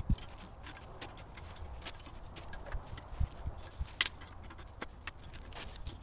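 Plastic sheeting crinkling and tape being handled while the box is wrapped: irregular clicks and crackles, with the sharpest snap about four seconds in.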